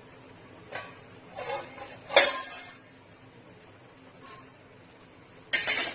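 Kitchen utensils clinking and knocking a few times as a pot and strainer are handled to strain a spiced herbal decoction. The loudest clink is about two seconds in, and a short clatter comes near the end.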